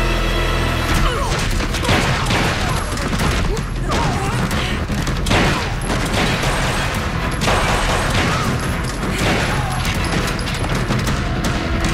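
Television fight-scene soundtrack: a rapid run of hits, crashes and sharp impacts over tense orchestral score music.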